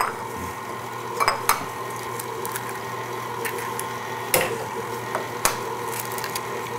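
Stand mixer motor running steadily on low, its batter blade mixing sugar, spices and melted butter. Several sharp taps and clicks sound over it as eggs are cracked against a bowl, the loudest about four and five seconds in.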